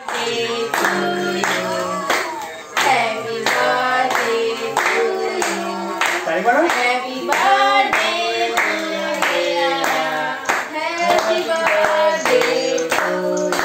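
A small group clapping in time, about two claps a second, along with a sung birthday song over music.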